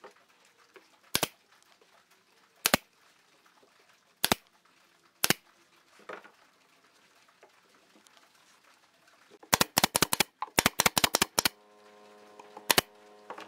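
Sharp wooden clicks as the drawer of a pine cabinet is pressed and pushed shut: single clicks a second or so apart, then a quick run of about ten. A steady hum comes in near the end.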